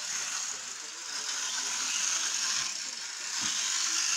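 Small electric motor and gears of an HO scale model diesel locomotive running with a steady whir, its wheels spinning on the track so it barely moves.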